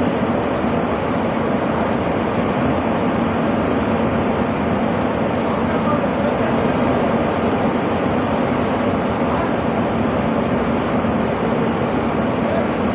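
Stick (arc) welding: the electrode arc's steady crackling hiss, with a low steady hum underneath.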